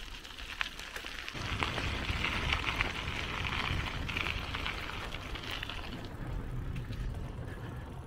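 Bicycle tyres rolling over a rough path: a crackling hiss full of small ticks, with a low rumble that sets in about a second and a half in; the hiss eases off near the end.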